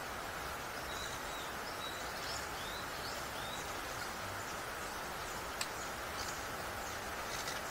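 Small birds chirping over a steady outdoor hiss: short rising and falling chirps through the first few seconds, more scattered chirps later. A single sharp click about five and a half seconds in.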